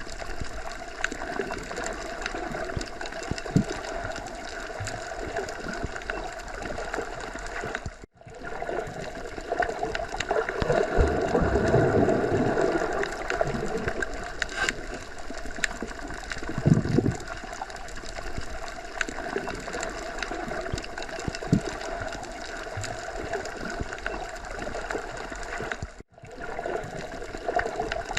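Underwater water ambience: a continuous muffled rush of water with low swells that rise and fall. It drops out twice to a brief silence, about eight seconds in and again near the end.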